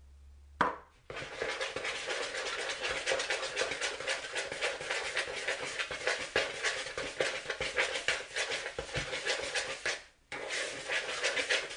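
A rounded-edged knife stirring crumbly dough in quick little circles in a plastic mixing bowl: a fast, continuous, rhythmic scraping and rattling, with a brief pause about ten seconds in. A single sharp knock comes just before the stirring starts.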